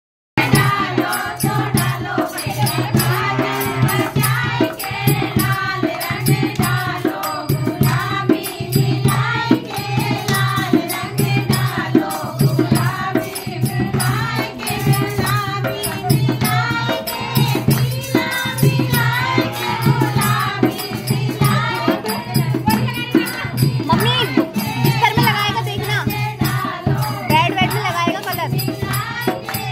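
A group of women singing a Holi folk song together, accompanied by a dholak beating a steady rhythm and rattling percussion.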